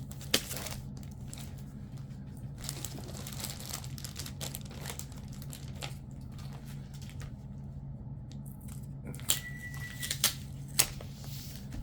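Plastic comic-book bags crinkling and rustling as bagged comics are handled and stacked, over a steady low hum. About nine seconds in, a kitchen appliance beeps once, a steady high tone about a second long, signalling that dinner is ready.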